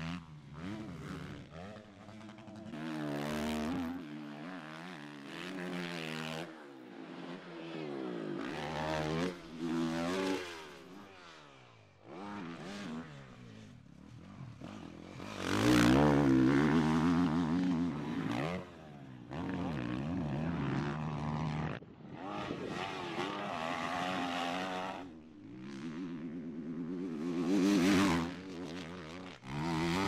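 Four-stroke motocross bike engines revving up and dropping back as riders go on and off the throttle, in a run of short passes cut one after another, loudest about halfway through.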